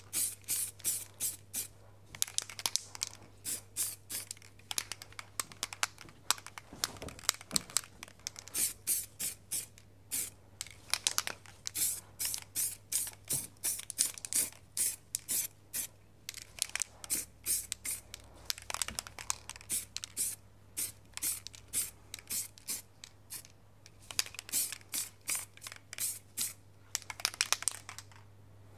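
Aerosol can of primer spraying in many short, quick hissing bursts, in clusters with brief pauses between, as a coat is laid on an alloy wheel. A faint steady low hum runs underneath.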